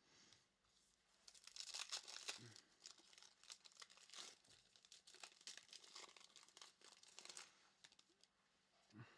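Faint crinkling and tearing of a foil trading-card pack wrapper being ripped open by hand, in quick, irregular crackles that start about a second in and die away near the end.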